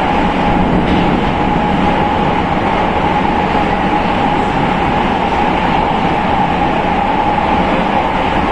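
Prague Metro Line B 81-71M train running steadily on the rails: an even rumble and rail noise with one steady high tone.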